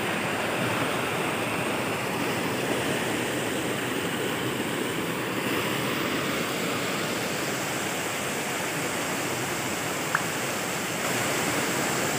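Shallow rocky river rushing steadily over stones, with one short click near the end.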